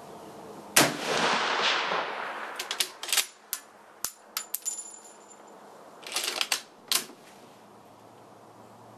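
A single shot from a Mosin-Nagant bolt-action rifle (7.62×54R) about a second in, its report ringing away for over a second. It is followed by a run of sharp metallic clicks and clacks as the bolt is worked to extract the spent case and chamber the next round.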